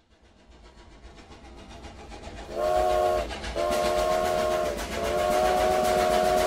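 Steam locomotive chugging, getting louder, then its whistle, several notes at once, blowing three times: a short blast, a longer one, and a long final one.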